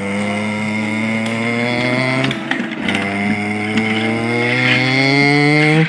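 A person imitating a truck engine with the voice: two long, drawn-out engine hums, each rising slowly in pitch like a revving motor, with a short break a little past two seconds in.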